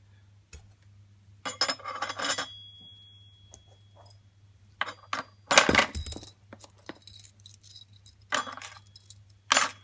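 Metal bicycle crank parts, including a chainring and bottom bracket cups and spacers, set down one after another on a glass-topped digital kitchen scale, clinking and clattering in four bursts, the loudest about six seconds in. The first clink leaves a thin ringing tone for about a second and a half.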